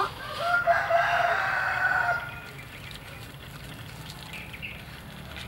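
A rooster crowing once: a single held call of about two seconds, ending a little over two seconds in.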